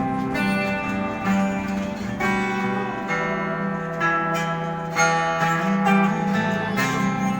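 Acoustic guitar strummed chords in a live song, the chords changing about once a second.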